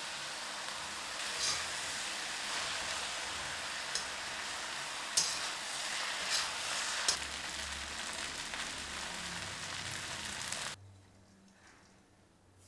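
Food frying in hot oil: a steady sizzle with a few sharp pops and crackles, stopping abruptly near the end.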